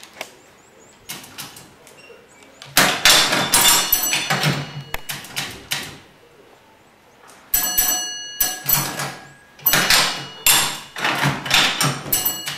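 Railway single-line token instrument being worked by hand: bouts of metallic clacks, clunks and rattles as its handle and slides are operated. About seven and a half seconds in, a clang is followed by a brief metallic ring.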